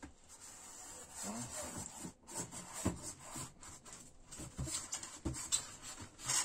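Cardboard box and packaging insert scraping and rustling, with small irregular knocks, as an electric kettle is worked out of its packaging.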